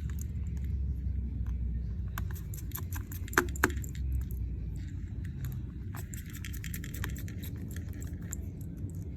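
Small metal tools and screws clicking and tapping during phone reassembly, scattered light ticks with two sharper clicks about three and a half seconds in, over a steady low hum.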